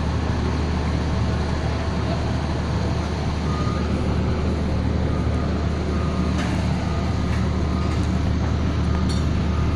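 A motor running steadily with a low, even hum and broad mechanical noise.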